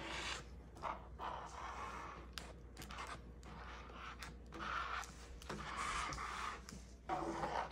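Stiff plastic blister-pack packaging, used as a makeshift spreader, scraping and swishing through wet epoxy over a black walnut slab in several irregular strokes.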